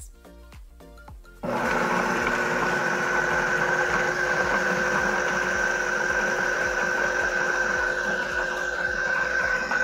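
Food processor: a few clicks as the lid is fitted, then about a second and a half in the motor starts and runs steadily on low speed with a steady whine, chopping onion and parsley.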